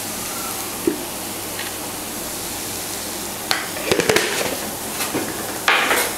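Chopped banana flower and onion frying in a non-stick pan with a steady sizzle. A wooden spatula scrapes and knocks against the pan in a few quick bursts past the middle and again near the end.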